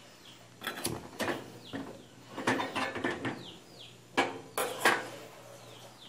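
Metal spoon scraping and clinking against an aluminium pot while stirring dry granulated sugar, in irregular strokes.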